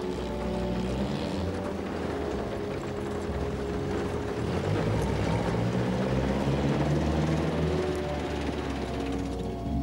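A vintage car drives over cobblestones and passes close by, its engine and wheels making a dense, loud noise that peaks about five to eight seconds in and fades near the end. Orchestral music plays underneath.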